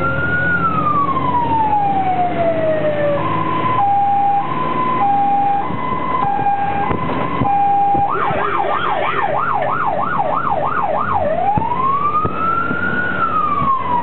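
Fire engine's electronic siren on an emergency run, cycling through its tones: a slow wail falling away, then a two-tone hi-lo for about four seconds, then a fast yelp at about three sweeps a second, then the slow wail rising and falling again near the end. The truck's diesel engine runs steadily underneath.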